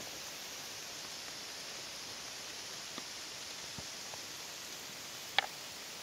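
Steady outdoor hiss with a few soft ticks, and one short, sharp click about five and a half seconds in as a rib is torn from a rack of grilled pork ribs.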